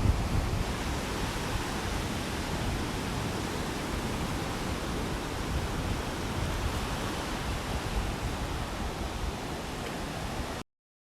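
Ocean surf and wind buffeting the microphone: a steady rushing noise that cuts off suddenly near the end.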